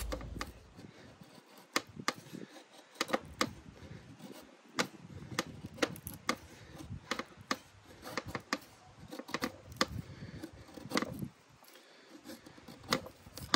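A Mora Companion Heavy Duty carbon-steel knife shaving thin curls down a wooden stick to make a feather stick: a series of short, sharp scraping cuts, about one or two a second.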